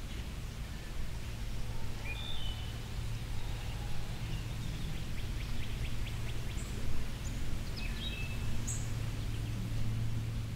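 Outdoor ambience: a steady low hum with a few short, high bird chirps scattered through the middle.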